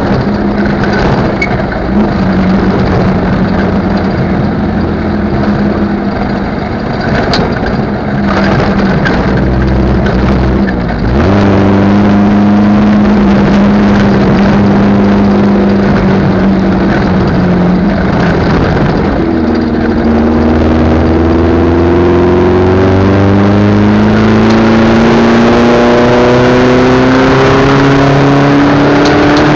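Competition car's engine heard from on board, pulling at a steady note, changing note about eleven seconds in, then revving in a long rising climb that drops sharply at the very end.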